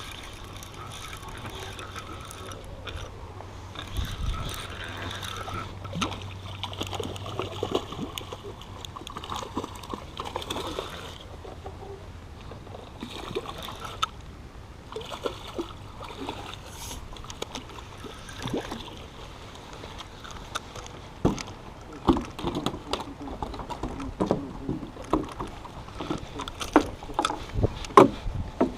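A catfish being reeled in and landed by hand on a fishing dock: scattered knocks and clicks from the rod, reel and handling, coming thicker and louder in the last third. A low steady hum runs under the first several seconds.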